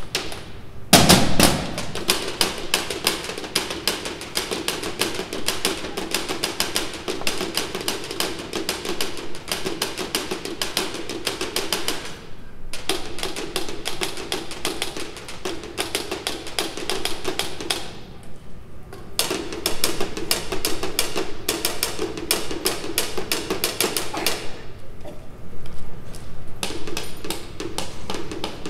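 Band percussion playing a fast, even run of drum and stick strokes, with one loud hit about a second in. The playing breaks off briefly three times, the last time near the end, and picks up again each time.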